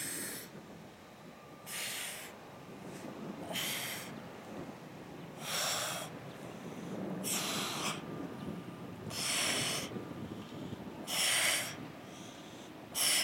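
A woman's sharp, forceful exhales through the mouth and nose, one with each crunch, about one every two seconds: the effort breathing of a hard set of abdominal crunches.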